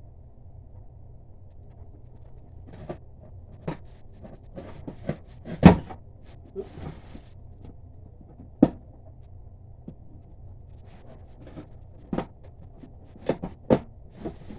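Scattered clicks, taps and knocks of packaging and zip-tied plastic toy parts being handled and pulled free, with one louder thump about halfway through and a quick run of clicks near the end, over a low steady hum.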